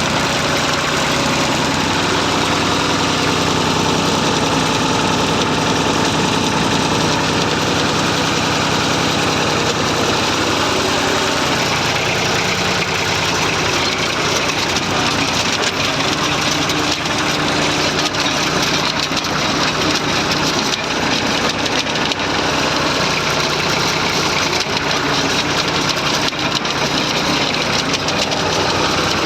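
Massey Ferguson 35 tractor engine running steadily while pulling a plough, its note shifting about twelve seconds in.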